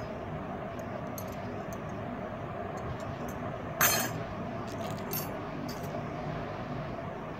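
Metal kara bracelets clinking against each other as they are handled, with one loud clink about four seconds in as a bracelet is set down on the pile, then a few lighter clicks. A steady background rumble runs underneath.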